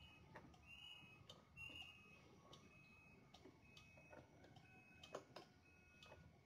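Faint regular ticking, about three ticks every two seconds, over near-silent room tone.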